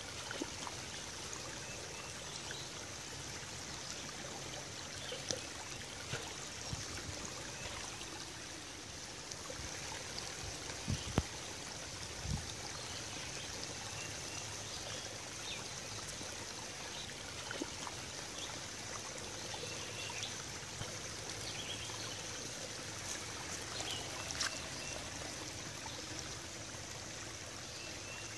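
Small woodland creek trickling over rocks, a steady running-water sound. Two brief thumps come about eleven and twelve seconds in.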